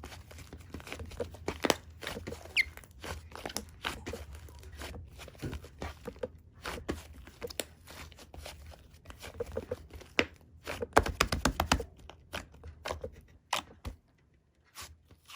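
Slime being squeezed and pressed by hand, giving an irregular run of small crackling clicks and pops, thickest about eleven seconds in and dropping away briefly near the end.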